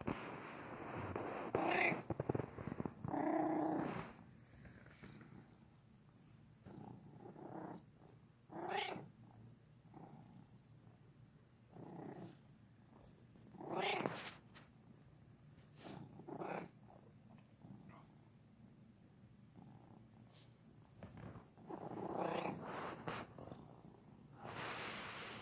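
Domestic cat meowing again and again, about nine calls of varying length with pauses between, and purring underneath.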